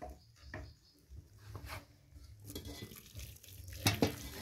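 Hot water poured in a thin stream from an aluminium kettle into an aluminium basin over dried salt fish, faint trickling and dripping that builds in the second half, to soak the salt out of the fish. Scattered light clicks, with a sharper knock near the end.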